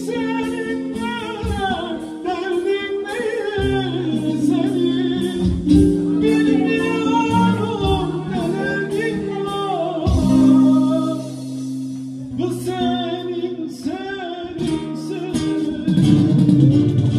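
A man singing, accompanied by a bağlama (long-necked Turkish saz) and an acoustic guitar, with the strings played harder and louder near the end.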